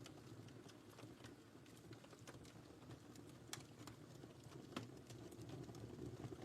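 Wood fire crackling: a steady low rumble of burning with irregular sharp pops and snaps, two of them louder about three and a half and five seconds in.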